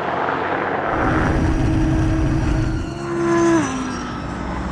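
A car engine under hard acceleration. Its steady note rises slowly, then drops in pitch about three and a half seconds in, over road and wind rumble, with a faint high whine above.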